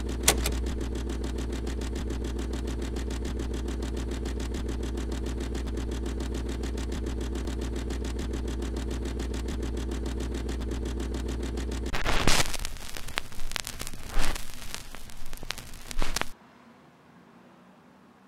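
Film projector running: a steady fast clatter over a low hum, with a click just after the start. About twelve seconds in it gives way to loud, irregular crackles and bursts of static, which cut off suddenly at about sixteen seconds, leaving only a faint hiss.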